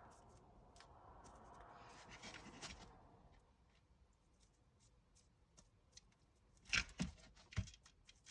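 A small brush scrubbing dust out of an N gauge model locomotive's chassis: a faint scratchy rustle for about three seconds. A few seconds later come a couple of small sharp clicks and knocks as the model is handled.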